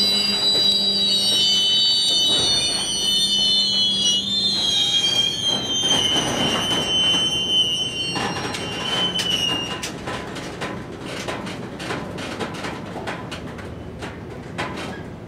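Freight train of covered hopper cars rolling slowly by, its steel wheels giving a high-pitched squeal that sags a little in pitch and stops about two-thirds of the way through. After that come scattered clicks and clanks from the wheels and cars, growing quieter as the train creeps along.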